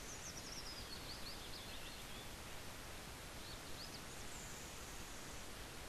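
Steady low background hiss, with a few faint high-pitched chirps in the first two seconds and a couple more around the middle.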